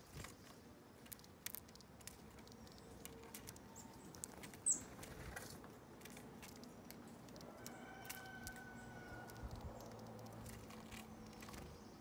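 Chestnut-backed chickadee on a wooden feeder table picking through seed: scattered faint taps and clicks, with one sharper, louder click about five seconds in. A faint, thin high whistle of a bird call comes briefly about two-thirds of the way through.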